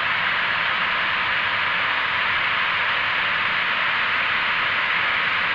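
Steady television static: an even hiss, strongest in the upper-middle range, with no change in level.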